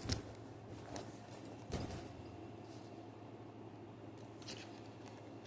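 Handling noise from a backpack: a few short knocks and rustles, the loudest right at the start, others about one and two seconds in and a fainter one near the end, over a low steady hum.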